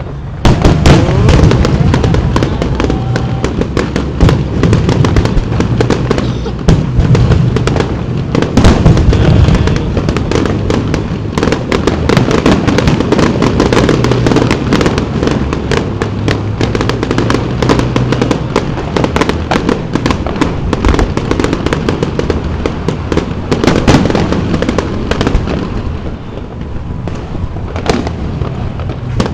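Aerial fireworks shells bursting in a dense, continuous barrage of bangs and crackles, with a loud burst just after the start. The barrage eases off briefly near the end.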